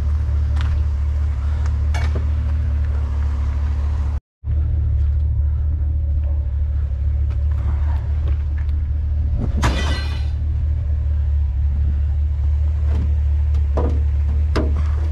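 Low, steady engine and road rumble of a vehicle being driven, heard from inside the cab, with a few light clicks and a brief rattle about ten seconds in.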